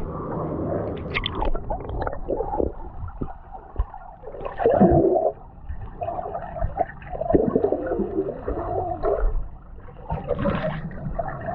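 Water gurgling and sloshing close to the microphone, muffled, with a louder splash about five seconds in.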